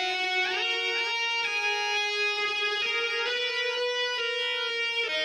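Instrumental background music: held notes ringing over one another, with a few sliding notes about half a second in.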